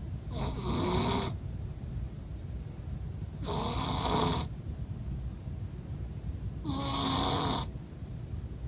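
Exotic Shorthair cat snoring in her sleep: three snores about three seconds apart, each lasting about a second.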